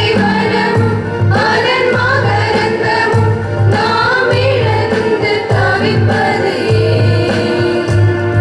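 A song sung with instrumental accompaniment: voices rise and fall in melody over steady, held low bass notes.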